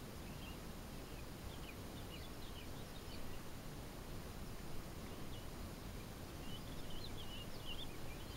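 Small birds twittering in short, quick chirps, twice in clusters, over a steady low outdoor background noise.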